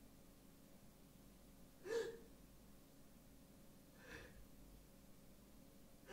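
Near silence: quiet room tone, broken three times by a brief soft noise about two seconds apart, the first clearly the loudest.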